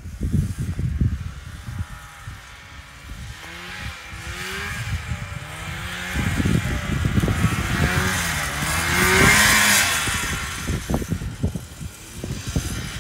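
Vintage 1975 John Deere snowmobile's two-stroke engine running as the sled approaches and passes close by, its pitch rising and falling with the throttle, loudest about nine seconds in. Wind buffets the microphone.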